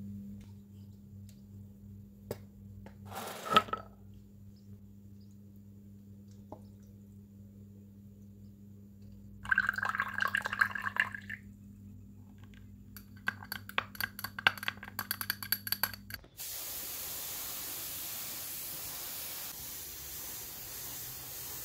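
Small hard parts clinking and rattling in two quick bursts, then a steady hiss that starts about three-quarters of the way through, all over a low electrical hum.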